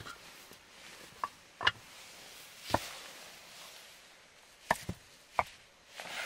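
Split manuka firewood knocking: about six sharp wooden knocks, spaced unevenly, as the pieces are split and handled.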